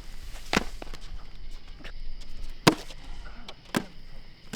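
Three sharp knocks: one about half a second in, then two more near the end about a second apart, with lighter taps in between.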